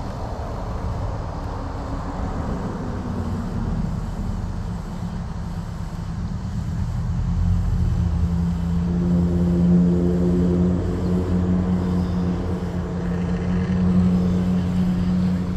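Motor vehicle engine running. Its pitch falls in the first few seconds, then it settles into a steady, louder drone from about halfway through.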